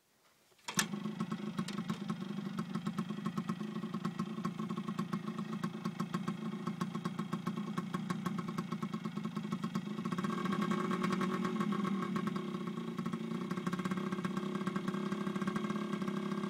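Yamaha RT100 dirt bike's small two-stroke single-cylinder engine starting about a second in, then idling steadily with a fast even beat, a little louder from about ten seconds in.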